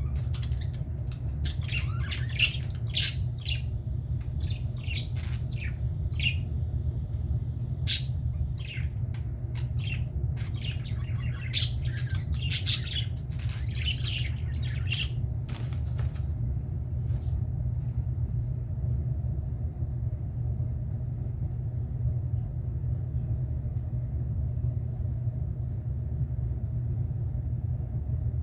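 Budgerigars chirping and squawking in quick, sharp calls for about the first half, then falling silent. A steady low rumble runs underneath throughout.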